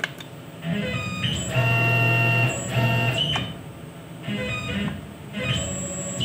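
Tormach PCNC 1100 CNC mill's axis stepper motors whining as the table is jogged in several separate moves. The pitch sweeps up as each move starts and then holds steady. A single sharp click comes right at the start.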